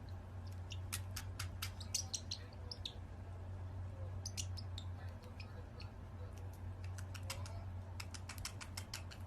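Parrot making quick high chirps and clicks in irregular clusters, over a steady low hum.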